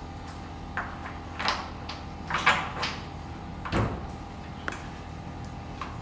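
A steel wall-bed track bracket and its hardware being handled against the wooden base: a handful of short knocks and scrapes, the loudest a little over two seconds in, over a steady low hum.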